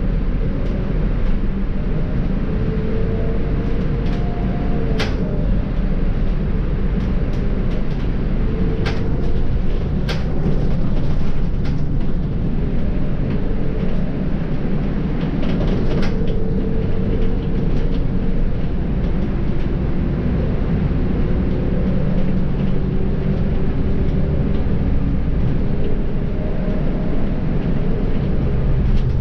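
Volvo B7R bus in motion: steady diesel engine and road rumble, with a faint drivetrain whine that rises and falls as the speed changes. A few sharp clicks or rattles stand out in the first half.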